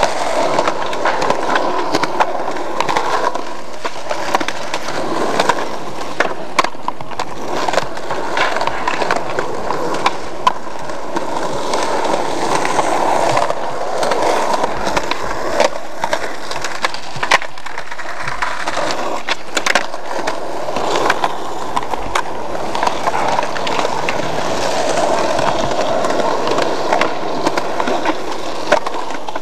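Skateboard wheels rolling over rough concrete, with repeated sharp clacks of the board striking the ground as the skaters pop and land tricks.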